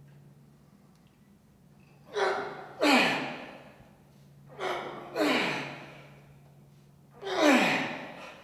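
A man breathing hard as he strains through heavy barbell shrugs. There are three forceful breaths about two and a half seconds apart, each a short gasp followed by a longer exhale that fades out.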